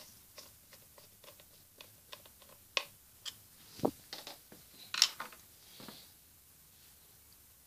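Scattered small clicks and taps of a small model fire alarm being handled, with a few sharper knocks about three, four and five seconds in.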